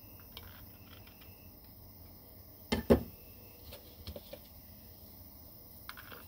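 Light clicks and taps of a screwdriver and steel transmission parts being handled on a wooden workbench, with a sharp double knock about three seconds in.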